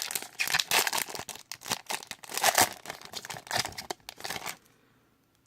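Trading card pack wrapper crinkling and tearing as it is opened and handled: a dense run of sharp crackles that stops about four and a half seconds in.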